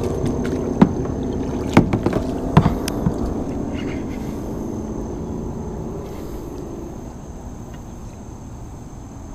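Kayak paddle strokes in the water as the kayak is paddled backward: splashing and dripping, with a few sharp knocks in the first three seconds. The splashing dies away over the last few seconds.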